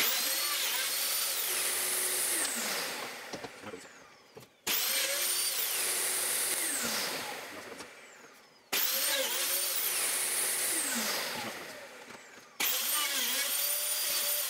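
Mafell DD40 dowel drilling machine run four times in quick succession while boring dowel holes in a pine panel: each time the motor comes in sharply, runs steady for a couple of seconds, then winds down with a falling whine after it is switched off.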